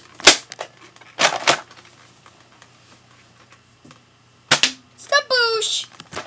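Nerf blaster firing: a sharp snap, a short double whoosh about a second later, and another sharp snap about four and a half seconds in, followed by a brief shout.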